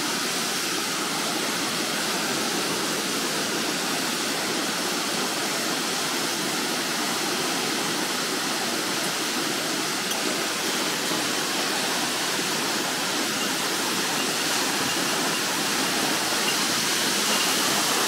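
A 30 m man-made waterfall, part of an irrigation weir channel, pouring down in a steady, heavy rush of water.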